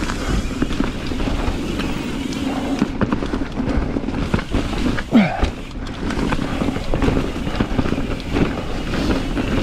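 Ibis Ripmo V2 mountain bike ridden along a leaf-covered dirt singletrack: knobby tyres crackling over dry leaves and dirt, with the bike rattling and clicking over bumps. A short falling-pitched sound cuts through about five seconds in.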